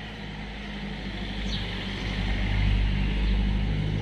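Low motor-vehicle engine hum, swelling from about two seconds in and easing slightly near the end.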